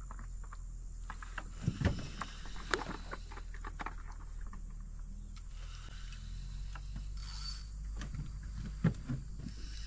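Scattered light knocks and taps on a fishing kayak and its gear over a steady low rumble, a few sharper knocks about two seconds in and again near the end.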